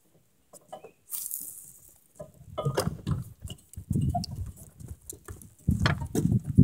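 Irregular rustling, scraping and knocks close to the microphone, with a brief hiss about a second in.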